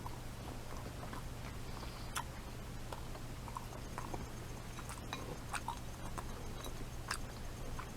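Quiet chewing of baked, crunchy pigs in a blanket (sausages in pastry), with soft scattered clicks every second or two over a steady low hum.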